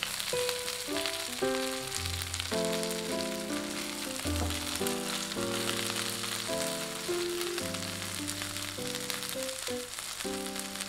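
Coated chicken thigh pieces sizzling steadily as they shallow-fry in oil in a pan. Background music plays over it: a melody of short notes with low bass notes every couple of seconds.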